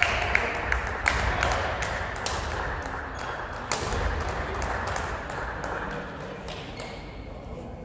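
Badminton rally in a hall: sharp racket hits on the shuttlecock and short squeaks of court shoes on the wooden floor, ringing in the hall. The sounds die down over the last couple of seconds.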